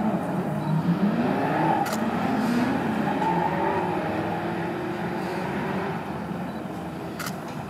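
Race car engines running, their pitch rising and falling several times and slowly growing fainter.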